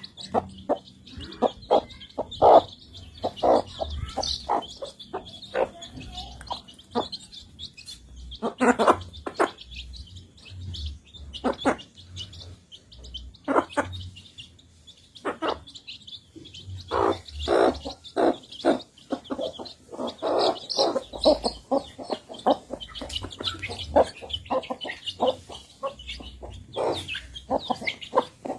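Chickens feeding: a dense, irregular run of short pecking and clucking sounds, with high chirping going on throughout.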